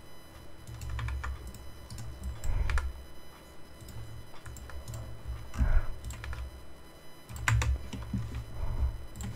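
Computer keyboard being typed on: scattered key presses at an uneven pace, with low thumps under them.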